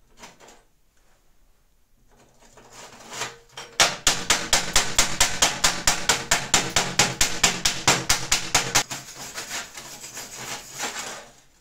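Slag being knocked off a fresh stick-weld bead on steel angle: a run of rapid, even metal strikes about five a second, turning into lighter, softer strokes near the end.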